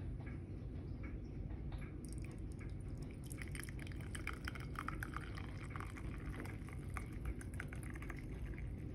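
Tea pouring from a stainless-steel teapot into a porcelain cup, a steady splashing trickle that starts about two seconds in as the cup fills.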